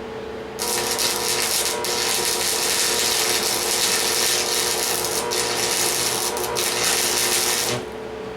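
Welding arc crackling and hissing for about seven seconds, with a few brief breaks. It starts and stops abruptly.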